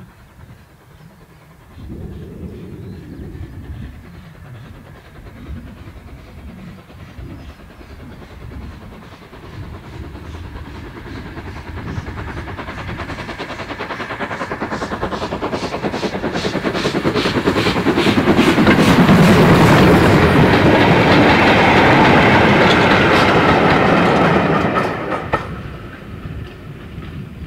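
LMS Ivatt 2MT 2-6-2T tank engine No. 41312 working steam, its exhaust beats growing steadily louder as it approaches and passes close by, with the clatter of the train's wheels on the rails. The sound cuts off suddenly near the end.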